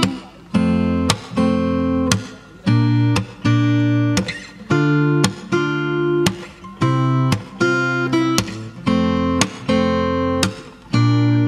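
Background music: an acoustic guitar strumming chords in a steady rhythm, about two strums a second, each chord ringing briefly before the next.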